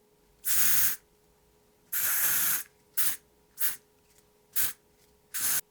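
Aerosol can of bug spray being sprayed in hissing bursts: two longer sprays of about half a second, then four short puffs.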